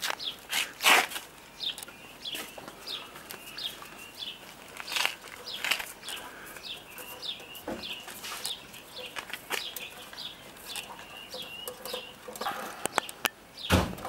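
A small bird or chick chirps over and over, short high falling notes about two a second, with a few sharp knocks and clatters; the loudest comes about a second in, and another comes near the end as a metal bowl is set down among the puppies.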